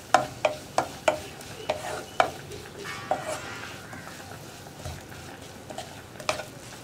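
Wooden spatula scraping and tapping against a nonstick pan as grated beetroot thoran is stirred, over a faint sizzle of the beetroot cooking. The strokes come quickly in the first three seconds and thin out after that.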